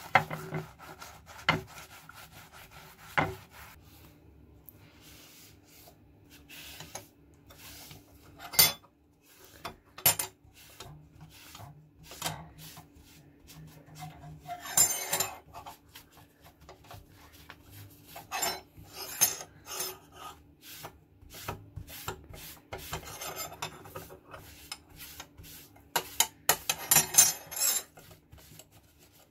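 Rusty old steel scissors being scrubbed by hand to strip rust, first with a scouring pad in a glass dish of cleaning solution and then with steel wool on a tabletop. The rubbing comes in separate short bursts of scratching, with scattered sharp clicks as the metal knocks against the dish and table.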